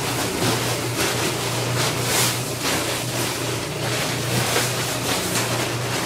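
Large plastic tarp rustling and crackling in uneven bursts as it is shaken out and spread over freshly cast concrete pavers, with a steady low hum underneath.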